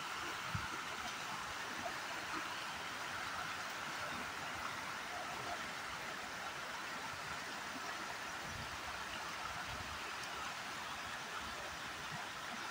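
Steady rushing of flowing river water, with a few faint low thumps.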